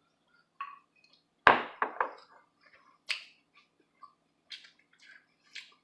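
A utensil clinking against a bowl: one sharp clink about a second and a half in, then a few lighter clicks and faint ticks.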